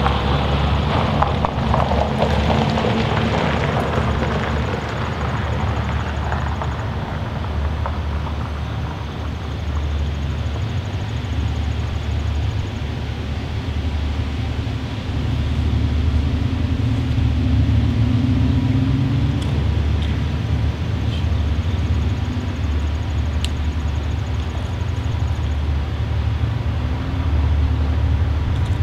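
A pair of EMD GP39-2 diesel locomotives with turbocharged V12 engines approaching, a deep steady engine rumble that swells a little at times.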